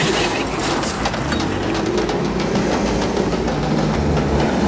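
Defenture Vector military off-road vehicle driven hard over a rough dirt track: its engine runs under throttle amid a dense clatter and rattle of gravel and suspension, with background music underneath.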